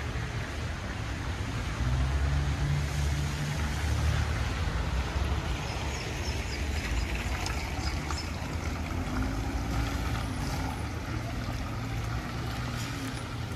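Street traffic on a wet road: a car engine running steadily, with the constant hiss of water and tyres on wet pavement. The engine hum grows stronger about two seconds in.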